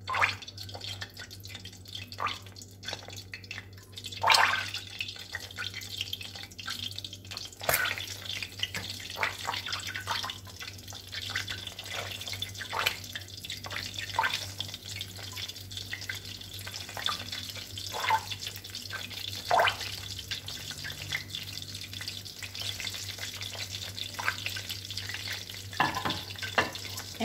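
Breaded tuna and cauliflower balls frying in shallow sunflower oil in a stainless steel pan: a steady light sizzle and crackle that picks up about four seconds in. Sharp clicks of metal tongs against the pan are scattered through it as more balls are laid in.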